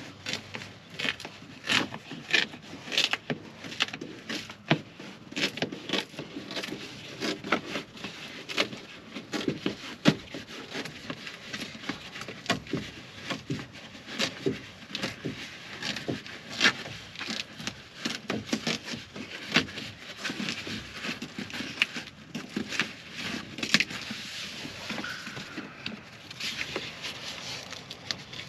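Plastic water shield being peeled off the inner door of a 2009 Chevrolet Silverado, crinkling and crackling as it pulls away from the black sticky sealant strip. The crackles are sharp and irregular, several a second.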